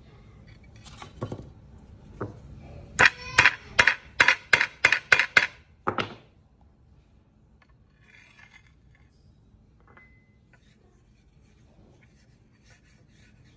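Hammer blows on metal: a few lighter knocks, then a quick run of about ten sharp, ringing strikes at roughly three a second, ending about six seconds in.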